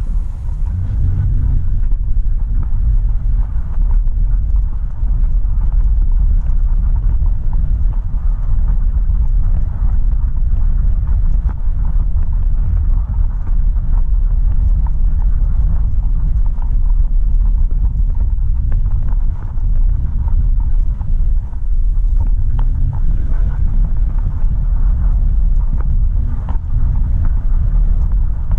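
2007 Toyota Sienna minivan on the move: a steady low rumble of road and engine noise with wind noise over it, and a few faint clicks.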